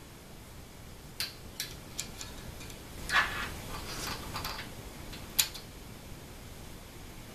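Small metal hardware being handled on an aluminium extrusion frame: a few light clicks, a short scraping rustle, then one sharp click, as a bolt is fitted by hand into a slot nut.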